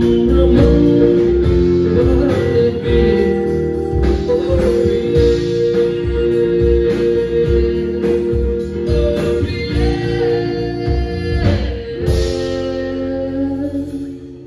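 Live band playing the instrumental close of a song: electric guitars over a steady drum beat. Near the end the drumming stops and a final chord rings out and fades.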